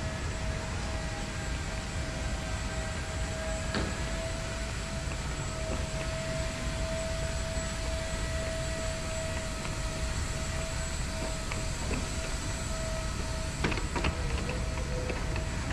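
Train running: a steady low rumble under a constant mid-pitched hum, with a few sharp clicks near the end.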